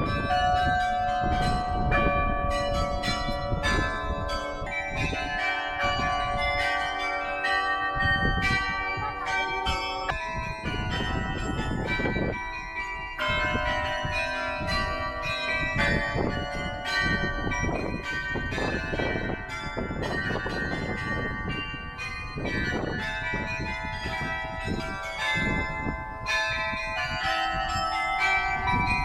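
The St. Pierre Cathedral carillon playing a tune: many bells struck in quick succession, their notes changing in pitch and ringing into one another.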